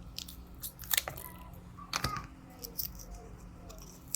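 Light handling clicks and taps of a small plastic key-fob shell and coin-cell battery being worked by hand, with sharper clicks about one second and two seconds in.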